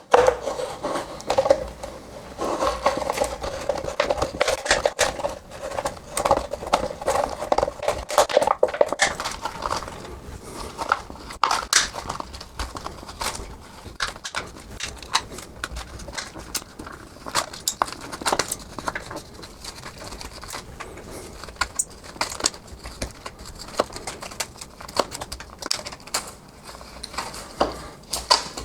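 A PET plastic bottle crinkling and crackling as a Swiss Army knife blade cuts and pulls it into a continuous strip, with many small irregular clicks. A squeaky scraping tone runs through about the first third, then fades.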